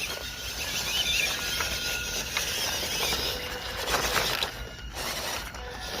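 MN99 RC Land Rover D90 crawler's small brushed 260 motor and gearbox whining under load as it climbs, its tyres scrabbling and digging into loose dirt.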